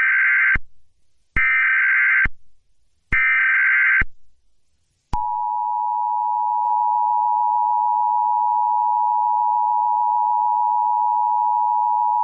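Emergency Alert System tones: three short buzzy bursts of SAME digital header data, each just under a second long, then about five seconds in the steady two-tone EAS attention signal (853 and 960 Hz). Together they open an Amber Alert (Child Abduction Emergency) broadcast.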